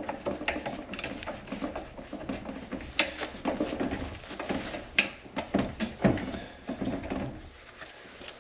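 Metal hand tools clinking and rattling, as sockets are picked out and handled: irregular sharp clicks and knocks, the loudest about three and five seconds in.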